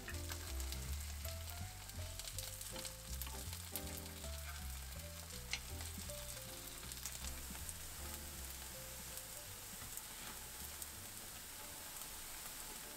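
Potato-and-chive pancake frying in oil in a pan, a steady sizzle and crackle that stops abruptly near the end.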